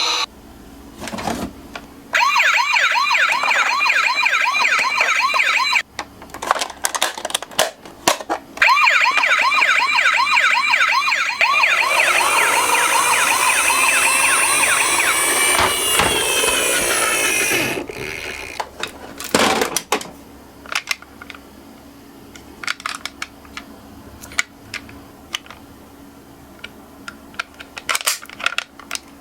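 Toy ambulance's electronic siren sounding in quick rising sweeps, about three a second, in two stretches with sharp clicks between, then a different siren tone for several seconds. After that only light clicks and plastic knocks.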